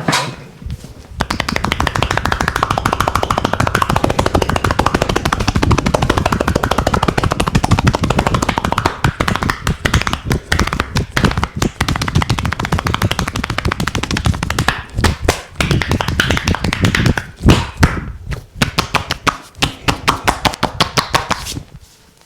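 Rapid percussive massage on the body: a fast, continuous rattle of strikes that starts about a second in, turns choppier in short bursts in the last third, and stops just before the end.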